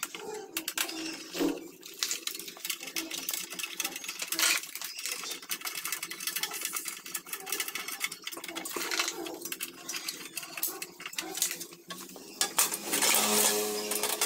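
Screwdriver working the screws on a panelboard's front cover, with scattered small clicks and clinks. Near the end, a louder scraping as the cover is pulled off the box.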